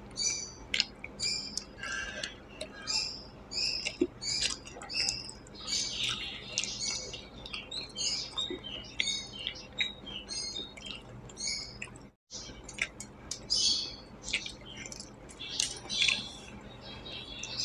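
Close-miked wet mouth sounds of eating fish curry and rice by hand: rapid, irregular smacking, sucking and squishy chewing clicks. The sound drops out for a split second about twelve seconds in.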